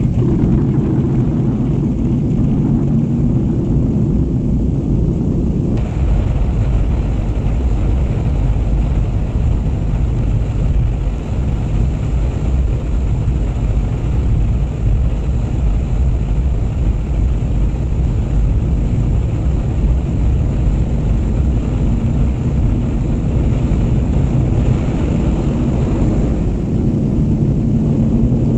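Handley Page HP42 airliner's four radial engines running with a loud, steady propeller drone, its tone shifting about six seconds in.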